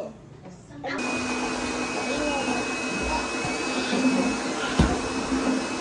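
A small electric motor running steadily with a constant whine, starting suddenly about a second in. One dull knock comes near the end.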